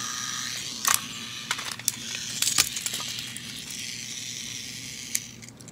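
Plarail Ashima toy locomotive held in the hand, its battery motor running with a steady high whir while the wheels spin freely; the whir cuts off near the end. Sharp plastic clicks and knocks from the toy being handled sound over it.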